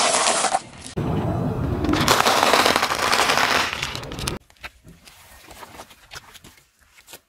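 A car tyre rolling slowly over crunchy things on asphalt, loudly crackling and crunching: first a pile of sunflower seeds, then, after a cut near one second, a longer crunch of a bag of vegetable snack straws. After about four seconds it turns much quieter, with scattered small clicks and crackles.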